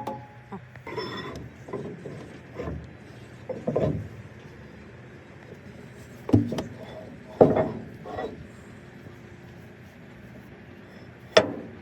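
Scattered clanks and knocks of metal parts and tools being handled during heavy-equipment repair work: about six separate hits at uneven intervals.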